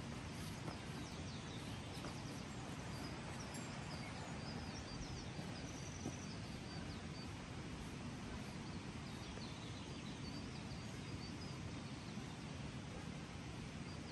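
Steady outdoor rushing noise with faint, high bird chirps scattered throughout and a few soft clicks.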